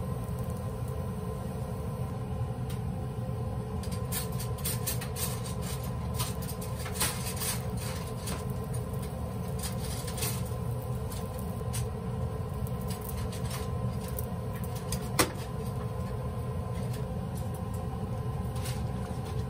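A wooden spoon stirring onion soup in an enamelled cast-iron pot, with light scrapes and clicks and one sharp knock about 15 seconds in, over a steady low kitchen hum.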